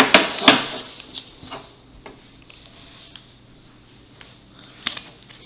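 A few sharp metallic clicks and knocks, then scattered lighter taps: a metal trading-card tin being handled on a wooden table and its lid taken off. The loudest clicks come in the first half second.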